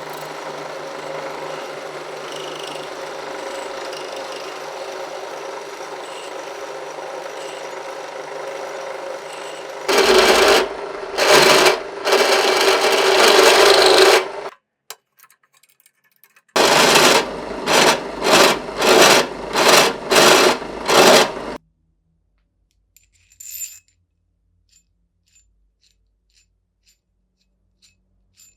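Abrasive rubbing on metal during rust and finish work on a vise: a steady run of rubbing, then three loud short bursts, and after a pause a run of about seven quick strokes, ending in a few faint light clicks.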